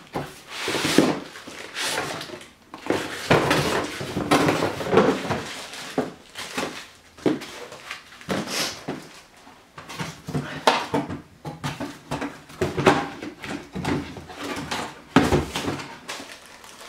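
Cardboard box flaps and white foam packing inserts being handled as a DVR is unpacked: irregular rustling, scraping and knocking.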